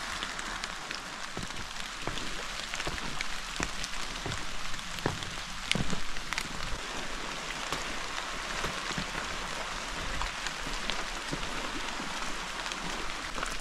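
Steady rushing hiss of running water, with scattered light knocks and a few heavier thumps about five to six seconds in.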